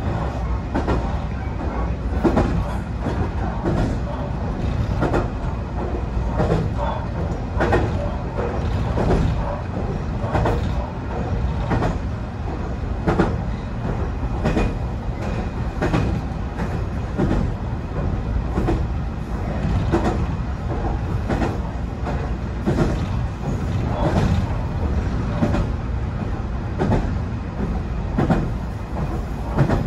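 BEC819 DENCHA battery-electric train running along the track: a steady low rumble with repeated clicks of the wheels over the rail joints at irregular intervals.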